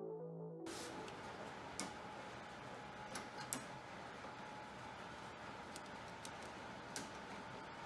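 Faint background hiss with a few scattered small clicks and ticks. A music track cuts off just under a second in.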